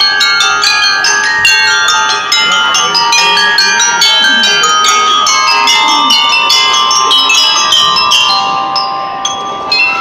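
A drum and lyre corps playing: a fast run of struck notes from mallet instruments (bell lyres and xylophones) ringing over drum strikes. The high notes thin out near the end.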